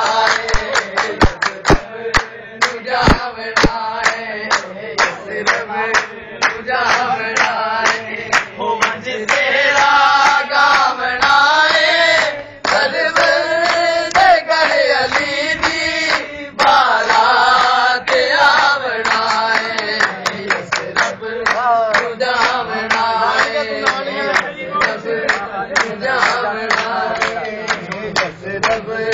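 Men singing a devotional qasida, carried along by hand-clapping from the gathering on the beat.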